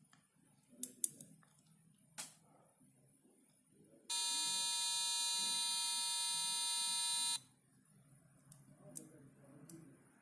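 A single steady, buzzy electronic tone from the laser harp kit's small speaker, held for about three seconds. A few light clicks come before it.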